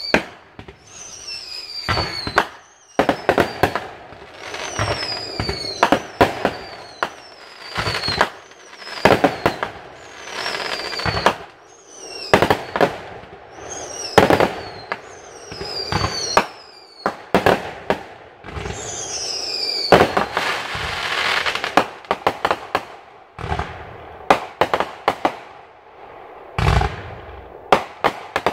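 Aerial fireworks going off in quick succession, with many sharp bangs. Many are led by a whistle that falls in pitch. A denser stretch of hissing noise comes about two-thirds of the way through.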